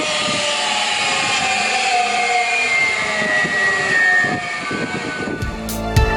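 REMA DMDK 35 cross-cut saw winding down after being switched off, its whine falling steadily in pitch as the blade coasts to a stop. Music with a drum beat comes in near the end.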